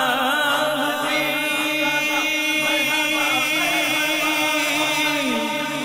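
Naat, an Urdu Islamic devotional song: a lead voice sings a wavering melodic line over steady held backing tones.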